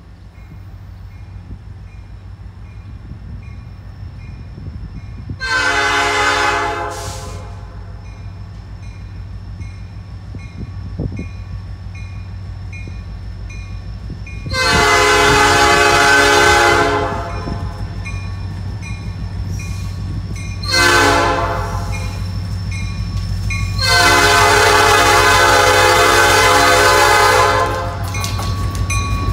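Diesel freight locomotive's multi-chime air horn sounding the grade-crossing signal: long, long, short, long, with the last blast held longest. Under it a crossing bell rings steadily, and the locomotives' diesel engines rumble louder near the end as they arrive at the crossing.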